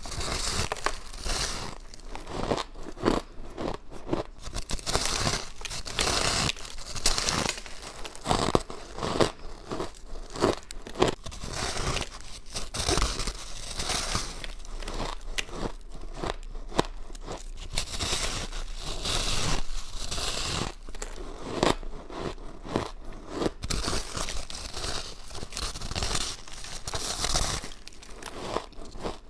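Bites into a block of powdery crushed ice: crisp crunching in quick, dense runs of short crackles, one bite after another.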